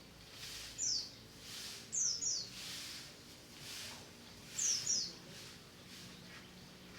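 Pleci (white-eye) calling: short, high chirps that fall in pitch, one about a second in, then a quick pair around two seconds and another pair near five seconds, over a soft hiss.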